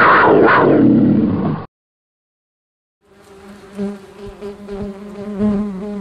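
A bumblebee buzz sound effect, a steady wavering hum, starts about three seconds in. Before it, a louder animal call with sweeping pitch stops about a second and a half in.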